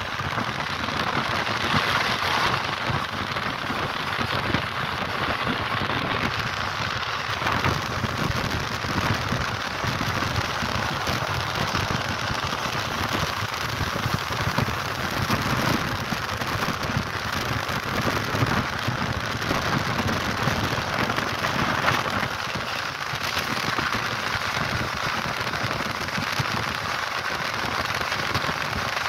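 Passenger train running on the rails at speed: a steady rush of wheel-and-rail noise with dense fine crackling.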